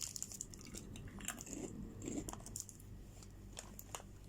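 A person chewing a snack close to the microphone, with many small, irregular crunching clicks.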